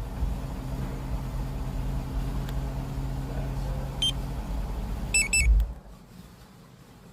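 Range Rover Sport SVR's supercharged V8 running with a steady low rumble, while the remote-start alarm gives a single beep about four seconds in and a quick double chirp just after. The running sound then stops abruptly, as the engine is shut off.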